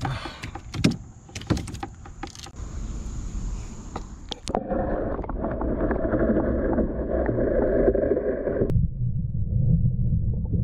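A rock bass flopping on the floor of a canoe, a quick run of sharp knocks against the hull. About four and a half seconds in the microphone goes under the water: a muffled rush of water noise, which drops to a low underwater rumble near the end.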